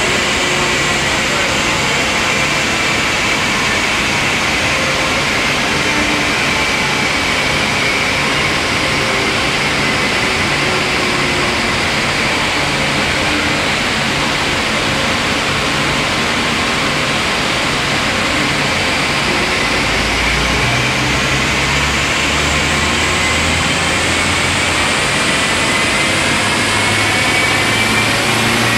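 Audi A4 TDI being run on a rolling-road dyno: the engine, the spinning rollers and the cooling fan make a loud, steady rush with a faint whine. The whine sinks slowly and then climbs again over the last third, while a low rumble grows about two-thirds of the way in.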